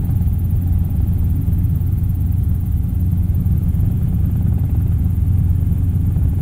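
Robinson R22 helicopter in flight: a steady low drone of engine and rotors heard inside the cockpit.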